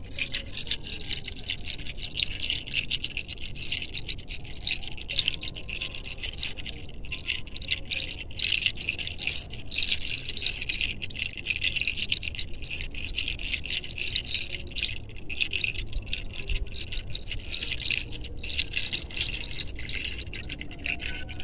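Fingertips rubbing through hair on the scalp during a head massage: a continuous, fast, scratchy rustle.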